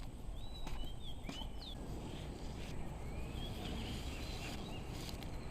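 Birds chirping in short, twisting calls over a steady low outdoor rumble, with a few faint clicks.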